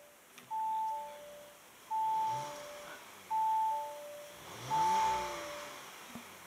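Audi RS5 two-note warning chime, a high note then a lower one, repeating about every second and a half; it goes with the dashboard's 'vehicle running, turn off the ignition' warning. Twice the 2.9 TFSI twin-turbo V6 is blipped briefly, its pitch rising and falling, heard from inside the cabin.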